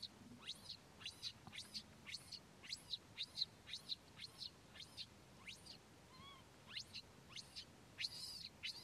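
Baby monkey crying: a steady series of short, high-pitched calls that sweep upward, about two or three a second, with one lower, arched call about six seconds in.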